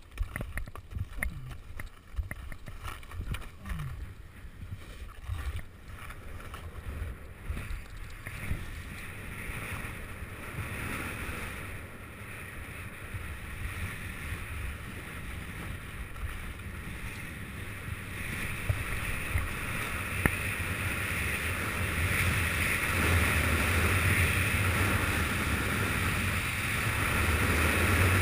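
Wind rushing over a GoPro microphone on a speedflying pilot in fast flight, growing steadily louder as speed builds. Uneven knocks and scuffs in the first several seconds.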